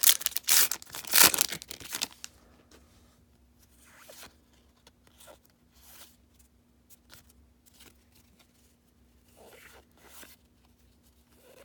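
A baseball card pack wrapper torn open in several quick rips in the first two seconds, followed by faint rustling as the cards are handled.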